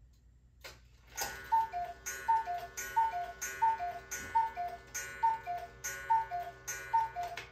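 Schneider cuckoo clock striking eight o'clock: after a single click, eight two-note cuckoo calls, a higher note then a lower one, a little under a second apart, each with the clatter of the bellows mechanism.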